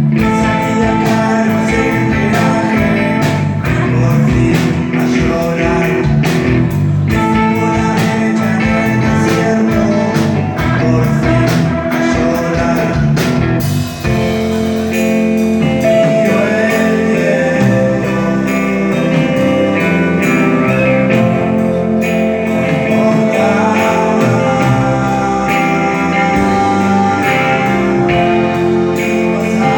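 Live rock band playing, electric guitar over drums. About halfway through there is a brief break, after which the drums thin out and the band moves to long held chords.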